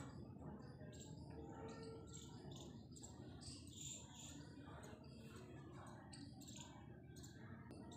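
Faint background of small birds chirping: many short, irregular high chirps over a low hum of ambient noise.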